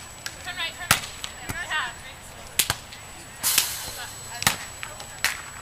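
Volleyballs being struck by hand, sharp slaps a second or two apart, with a short hiss of noise about halfway through.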